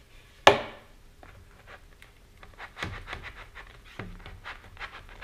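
Hands working masking tape around a rocket's nose cone and rubbing it down: a single loud sharp snap about half a second in, the loudest sound, then a run of small irregular rubbing and scraping sounds with a sharper knock a little later.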